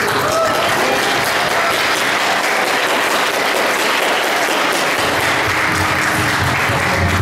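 A roomful of guests applauding, a dense and steady clapping.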